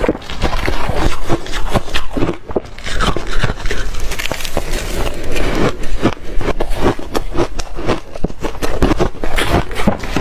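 A person biting and chewing soft reshaved freezer ice in big bites: a dense, continuous run of crackling crunches.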